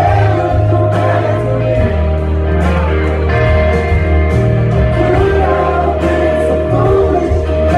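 Live rock band playing a song with electric guitars and drums, with singing over it, heard from the audience in a reverberant hall.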